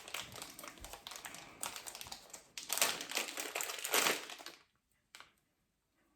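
Plastic packaging crinkling and rustling as it is handled, with small clicks and taps, stopping about four and a half seconds in; one short click follows.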